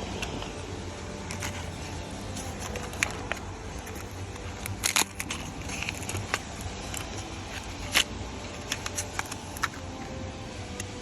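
Scattered small clicks and crackles from handling a replacement blade fuse at a car's fuse box, over a steady low hum. The sharpest clicks come about five and eight seconds in.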